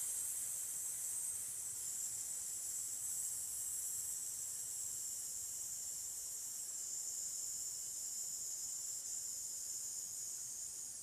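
A woman's long, slow exhale through the mouth as one steady 'sss' hiss: the S-breathing exercise, a drawn-out controlled breath out meant to empty the lungs fully. It eases slightly near the end.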